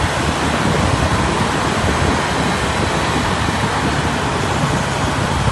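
Steady road traffic noise, with wind on the microphone.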